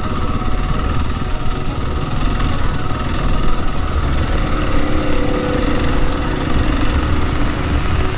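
Motorcycle engine running steadily while riding, with a dense rumble and a note that shifts a little about halfway through.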